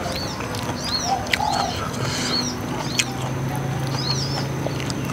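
A bird calling repeatedly, a short arched chirp every second or so, with a few sharp clicks close by and a low steady hum coming in about three seconds in.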